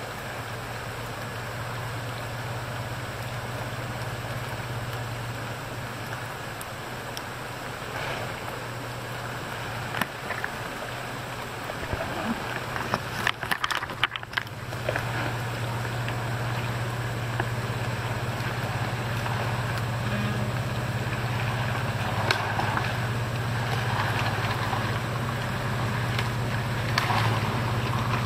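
Engine of a Toyota FJ Cruiser 4WD running at low revs, a steady drone that grows louder in the second half as the vehicle crawls down a muddy track, over a steady hiss. A cluster of knocks and clicks comes about halfway through.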